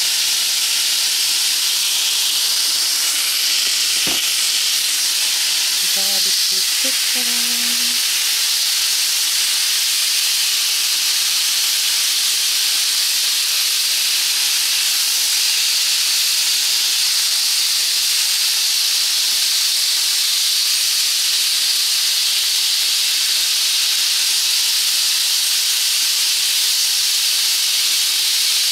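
Chicken pieces frying in a pan, a steady sizzling hiss throughout, with a single knock about four seconds in.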